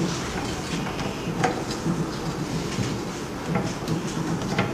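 Soft rubbing and handling noises with a few light knocks as a silicone cover is pressed by hand into the frame of a 3D sublimation vacuum press, over a steady background hiss.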